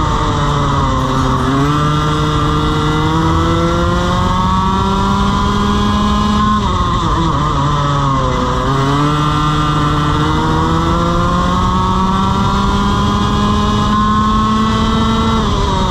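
Two-stroke TaG kart engine at full throttle. Its revs climb steadily along the straights and drop sharply under braking for corners, about a second in, again around seven to eight seconds in, and once more at the very end.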